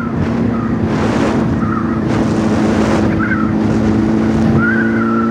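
Honda motorcycle engine running at a steady, even speed while riding, with wind rushing over the microphone in gusts. A steady higher whine joins in near the end.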